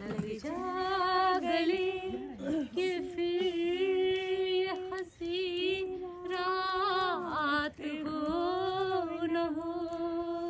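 A woman singing unaccompanied, holding long drawn-out notes with vibrato and no clear words, with short breaths between phrases.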